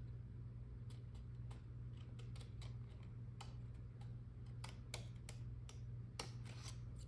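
Scissors snipping through a decal sheet: a run of faint, irregular clicks, over a steady low hum.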